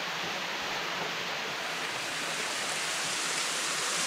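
Small waterfall spilling down a rock face: a steady rush of falling, splashing water.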